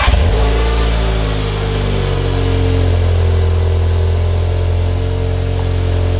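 VW Golf R Mk7.5's turbocharged 2.0-litre four-cylinder engine on its first start through a new Scorpion non-resonated GPF-back exhaust. The revs drop from the start-up flare over the first couple of seconds, then it settles into a steady idle.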